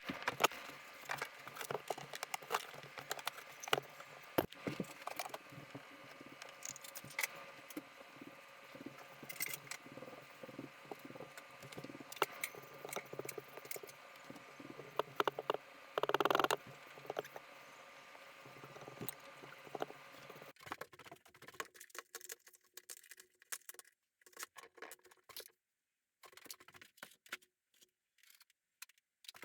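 Scattered small clicks, taps and scrapes of hand work at a workbench, with one louder burst of noise about sixteen seconds in. After about twenty seconds the sound changes suddenly and grows quieter and sparser.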